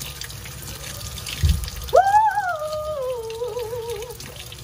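Kitchen faucet running steadily onto a tomato held in a stainless-steel sink as it is washed. About two seconds in, a high voice-like note sweeps up, then slides down and wavers for about two seconds.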